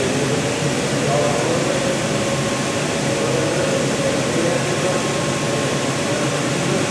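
Steady factory-floor noise: a continuous drone of machinery and air handling, with indistinct voices talking underneath.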